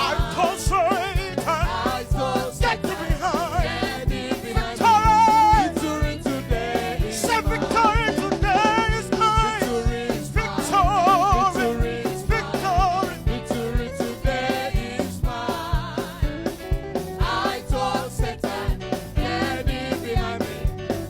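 Congregation singing a gospel praise song with a live band and a steady drum beat.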